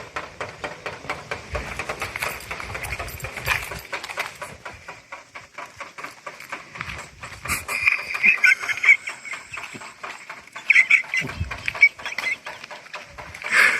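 Rainwater dripping off a roof edge: a dense, irregular patter of drops striking below, with a rhythmic, drum-like quality. A few brief higher-pitched warbling sounds break in, about eight, eleven and thirteen seconds in.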